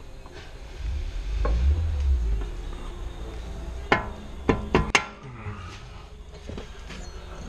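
A low rumble, then four sharp knocks in quick succession, from tools or parts being handled during the repair.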